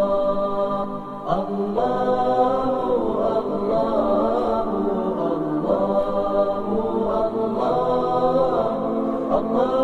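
Background music: a chanted vocal line of long held notes that slide between pitches, with no clear instruments.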